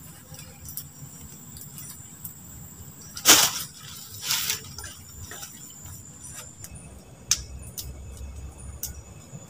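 Fabric and gear being handled at a hammock, with two loud rustling swishes about three and four and a half seconds in and a few light clicks later on.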